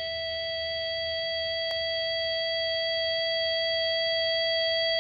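Rock song intro: a single held electric guitar tone through effects, steady in pitch and slowly swelling in volume, with no drums yet.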